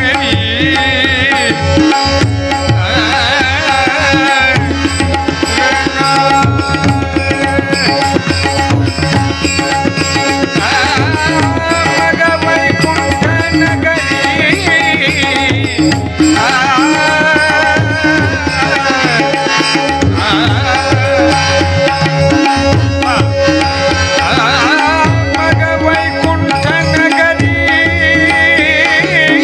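Marathi devotional abhang music: tabla keeping a steady rhythm under a wavering, ornamented melodic line, with no sung words.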